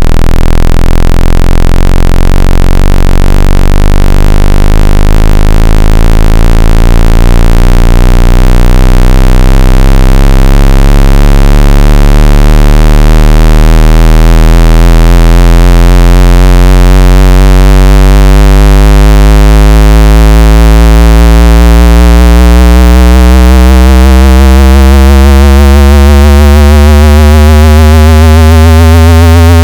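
Electronic synthesized test tone at full loudness, starting suddenly: a steady deep bass hum under a stack of higher tones that slowly rise in pitch.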